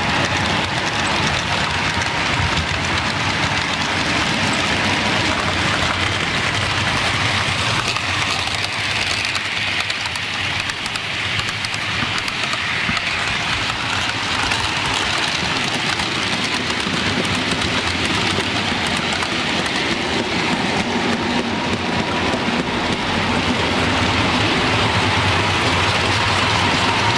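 Model trains running on a layout: a steady whirr and rumble of locomotive motors and wheels rolling on the track, with a faint higher whine joining near the end as another train draws in.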